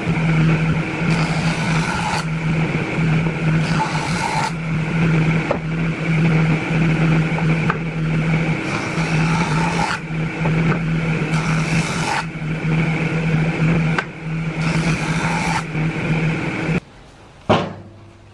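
Jointer running with a steady motor hum while branch halves are pushed over the spinning cutterhead again and again; each pass is a burst of cutting noise lasting about a second, roughly every two seconds. Near the end the machine sound stops abruptly and one sharp wooden knock follows.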